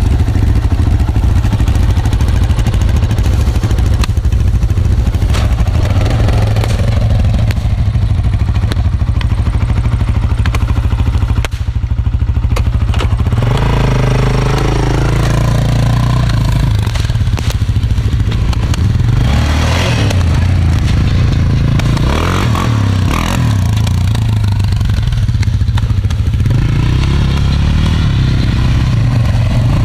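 Yamaha XT600 dual-sport's single-cylinder engine idling close by, then, from about halfway through, engine revs rising and falling as the bike pulls away and rides around.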